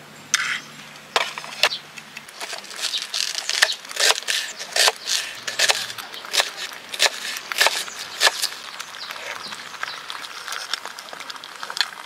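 Knife chopping an onion on a wooden cutting board: a long run of crisp, irregular cuts, each ending in a tap on the board.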